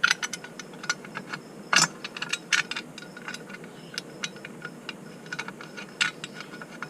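Irregular metallic clicks and clinks of hand tools working the screws and hardware on a motorcycle footboard, with a sharper knock about two seconds in.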